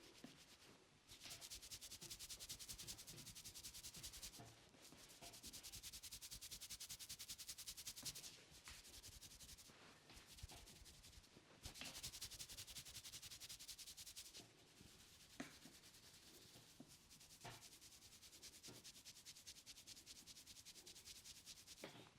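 Hands rubbing fast through the hair and over the scalp in a head massage: a soft, rapid, scratchy rustle that comes in three long spells, with quieter rubbing and a few sharp clicks in between.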